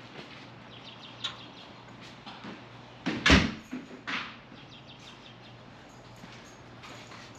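A car door slamming shut about three seconds in, a single loud thump with a smaller knock just after, among light clicks and rattles.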